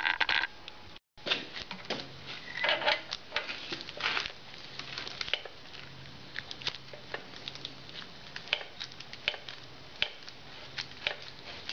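Irregular small clicks, taps and scrapes of gloved hands working a motorcycle front-fork top cap, threading it by hand onto the fork tube. The sound breaks off completely for a moment about a second in.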